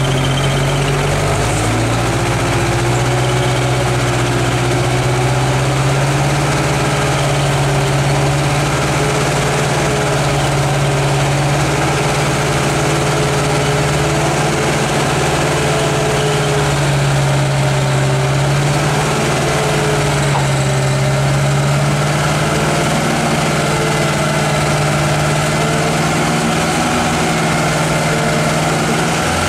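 Truck engine running steadily at low revs, its pitch drifting slightly up and down.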